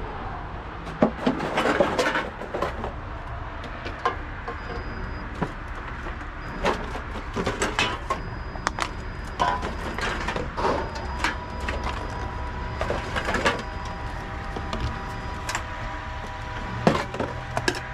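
Aluminium drink cans and plastic bottles knocking and clattering as they are fed one at a time into a reverse vending machine for the container deposit refund, over the steady hum of the machine running.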